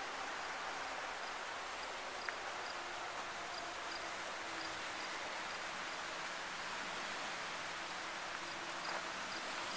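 Steady rush of water splashing down a boulder waterfall.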